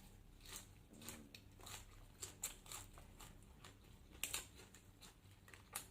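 Faint, irregular crisp crunches and clicks of someone chewing raw vegetables, with the sharpest crunches about four seconds in and near the end.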